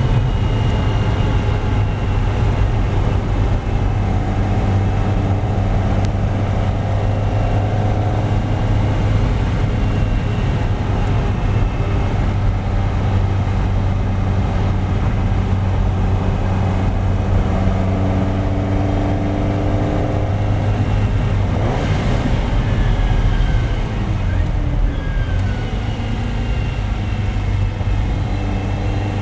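Ferrari 308 GTB's V8 engine heard from inside the cabin, pulling steadily in fifth gear at track speed. Near the end it falls in pitch as the car brakes hard and shifts down to third for a corner.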